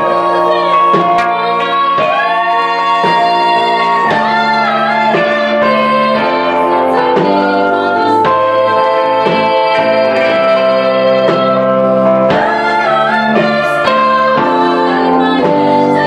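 Live band music: several women singing held notes in close harmony over instrumental accompaniment.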